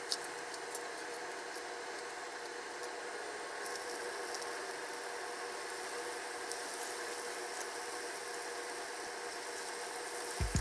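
Hot oil sizzling steadily in a frying pan, with fine crackles, as lotus root slices and then spring rolls shallow-fry; the crackle gets brighter about three and a half seconds in. A few low knocks near the end.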